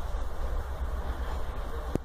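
Passenger train rolling slowly out of the station: a steady low rumble, with a single sharp click near the end.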